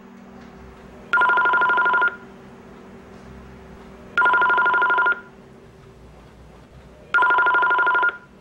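Telephone ringing three times, about three seconds apart. Each ring is a warbling two-note electronic tone lasting about a second.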